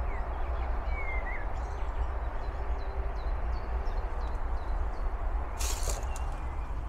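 Outdoor ambience: a steady low rumble of wind on the microphone, with faint, scattered bird chirps and whistles. A brief rush of noise comes about five and a half seconds in.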